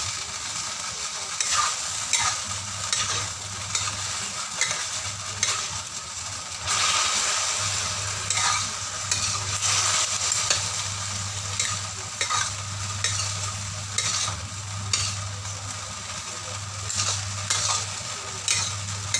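Vegetables and sauce sizzling in a stainless steel wok while a metal spatula stirs them, with frequent clicks and scrapes of the spatula against the pan over a low steady hum.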